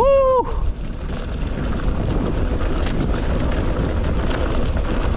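Mountain bike riding a dirt forest trail: a steady rush of wind on the helmet or bike camera's microphone over a low tyre rumble, with light scattered rattles from the bike.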